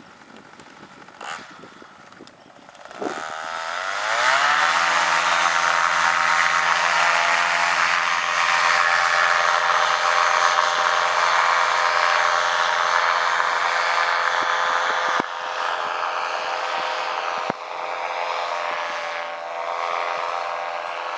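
Paramotor's backpack engine and propeller revving up about three seconds in, then running steadily at full throttle through the takeoff run and climb. The sound drops a little after about fifteen seconds as the paramotor flies away.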